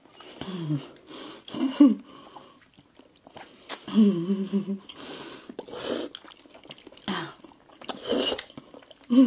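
Wet chewing and squishing of Kyoho grape jelly balls in full mouths, with scattered smacks and clicks. Short muffled hums come through the closed mouths, one held for nearly a second about four seconds in.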